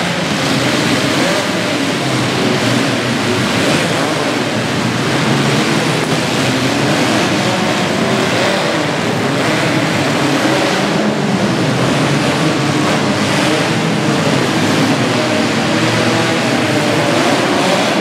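Several demolition-derby compact cars' engines running and revving together in a loud, continuous din, with many engine notes rising and falling over one another.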